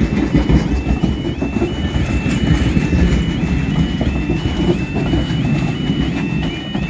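A train rumbling past at the platform, a loud low rolling rumble that eases near the end, with a repeated high two-note beeping over it about twice a second.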